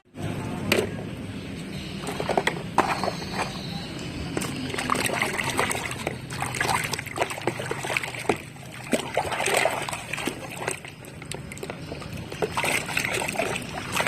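Water sloshing and splashing as a muddy plastic toy bus is washed by hand, with irregular short knocks and splashes.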